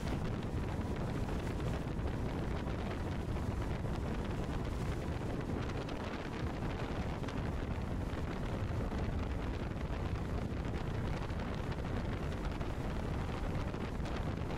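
Wind buffeting the microphone over the steady drone of a speeding open water taxi, its outboard motor running at speed and spray rushing off the hull.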